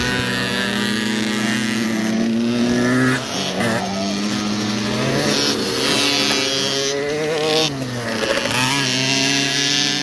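Small mini dirt bike (pit bike) engines running hard in a race. The pitch climbs under throttle and drops sharply as the throttle is rolled off, about three seconds in and again near the eight-second mark.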